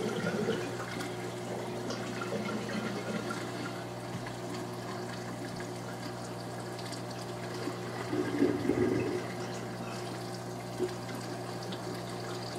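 Aquarium water running and gurgling over a steady low hum, with louder stretches at the start and about eight seconds in.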